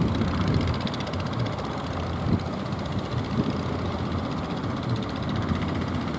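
Strong wind rumbling on the microphone over a steady engine running underneath.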